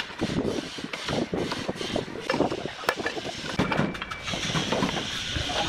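Terracotta roof tiles clacking and scraping against each other as they are set by hand into mortar, a run of irregular sharp knocks.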